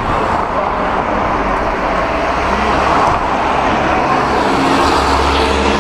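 Motor vehicle running, a steady mix of engine and road noise; a steadier pitched engine hum comes in near the end.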